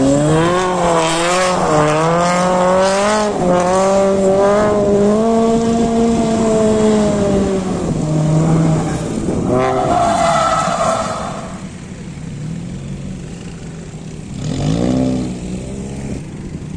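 Toyota 86 drifting on tarmac: the engine revs rise and fall under throttle, with tyres squealing loudest about ten seconds in. After about twelve seconds the engine runs quieter at lower revs, with one short rev rise near the end.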